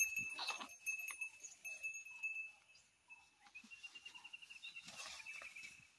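Faint rustling and soft footfalls of calves moving through grass and undergrowth. Under them runs a thin, steady high tone, and a faint rapid trill lasts about two seconds in the second half.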